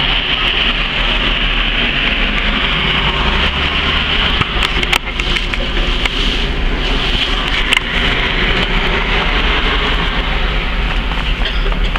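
Steady, loud rumbling noise with an even hiss over it, with a couple of brief clicks about five and eight seconds in.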